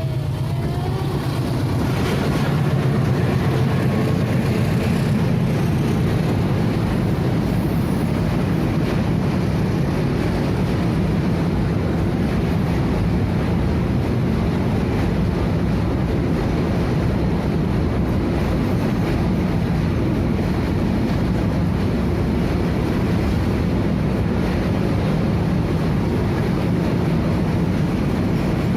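Freight train wagons rolling past close by: a steady, loud rumble of steel wheels on the rails.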